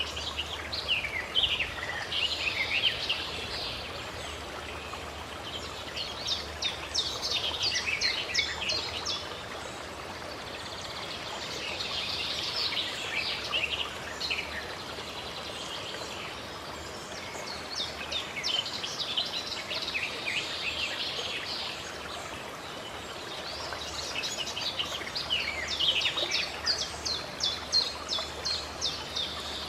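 Songbirds singing in repeated bursts of rapid chirps, several falling in pitch, coming every five or six seconds over a steady rush of running water.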